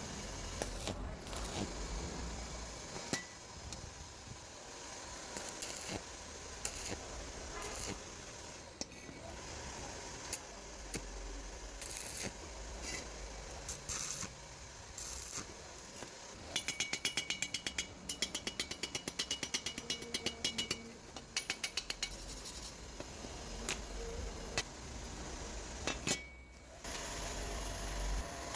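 Metal tools and parts being handled in a workshop, with scattered clinks and knocks. A fast, even run of clicks lasts about four seconds just past the middle.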